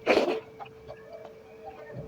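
A brief rush of noise at the very start, then low room tone with a faint steady hum and a few soft ticks.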